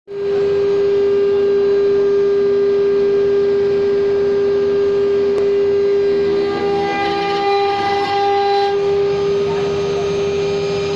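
Spindle of a Meiya MY6090 stone-engraving CNC router running with a steady whine while its cutter engraves a black stone slab under water coolant. A few extra tones come and go from about six to nine seconds in as the cut goes on.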